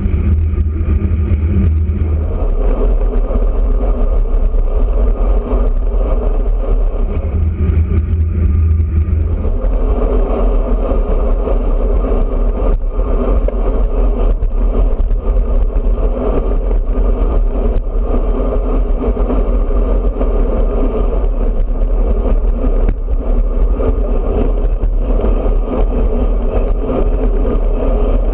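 Wind rushing over the microphone of a handlebar-mounted camera on a road bike at speed, with a deep steady rumble from tyres on the road. The low rumble shifts abruptly a few times in the first ten seconds.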